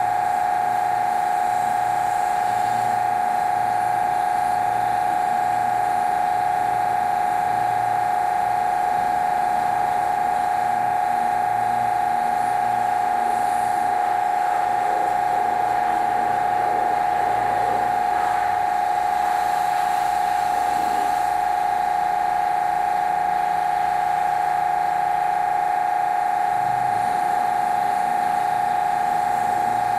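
Electric pressure washer running steadily with a high-pitched, unchanging whine.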